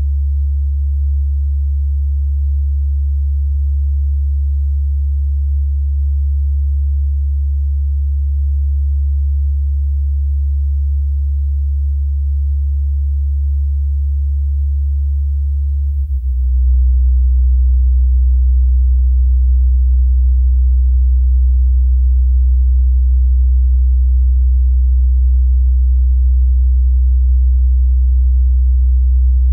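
A loud, steady, deep hum, a single low tone. About sixteen seconds in it changes and grows louder, with a faint rough buzz added above it.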